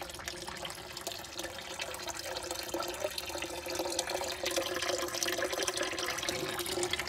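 Water trickling and splashing steadily into a small garden pond, the clean return flow from its pump-driven filter, with many small drips over a steady hum; it grows slightly louder after about two seconds.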